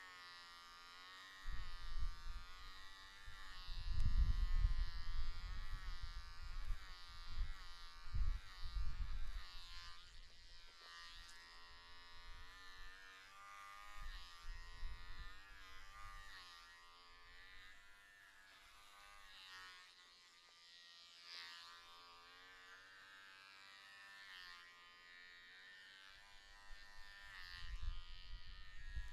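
Electric hair clippers buzzing steadily as they cut short hair, the pitch wavering slightly, with several louder bursts of low rumble along the way.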